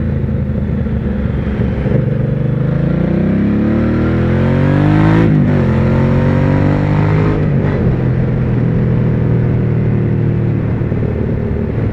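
2009 Hyosung GV650's V-twin engine, breathing through an adapted Ducati Diavel stock muffler, accelerating. The revs climb, drop sharply at a gear change about five seconds in, climb again and drop at a second shift near eight seconds, then hold steady, with wind noise rushing over the microphone.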